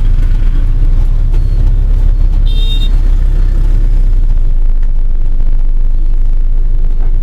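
Steady low rumble of a moving bus heard from inside its cabin, amid dense motorbike and car traffic. A short high-pitched horn beep sounds about two and a half seconds in.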